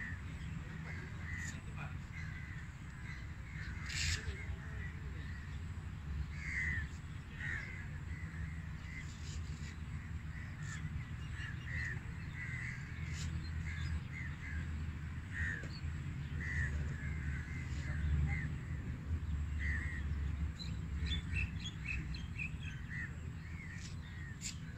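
Birds calling over and over in short calls, a few each second, over a steady low rumble. There is one sharp click about four seconds in.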